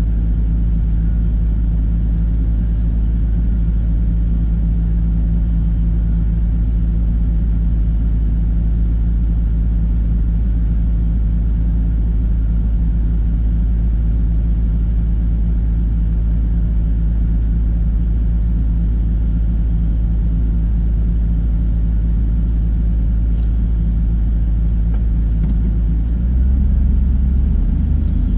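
Ram Power Wagon pickup's engine running steadily at low crawling speed off-road, a deep rumble that gets louder and rougher near the end.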